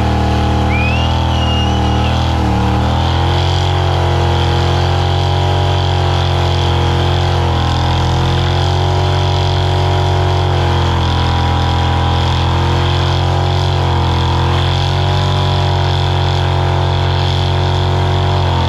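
Chevy S10 pickup's engine held at high revs through a burnout, running steadily with a brief dip in pitch about two and a half seconds in, over the noise of the rear tires spinning and smoking on the pavement.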